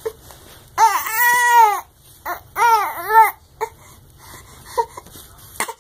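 A baby fussing and complaining: one long cry that rises and falls about a second in, then a few shorter arched cries, with small whimpers near the end.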